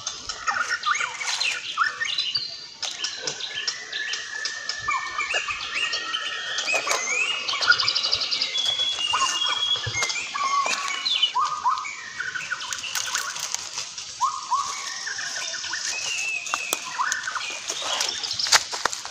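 Birds chirping in the surrounding scrub: many short, quick notes that rise and fall, several overlapping, with close crackling and snapping of leaves and twigs being handled.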